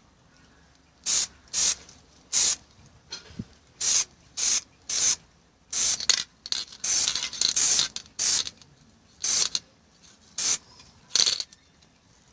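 Aerosol spray can of black acrylic paint hissing in about a dozen short bursts, with one longer spray around the middle: a second coat being sprayed onto a car door handle.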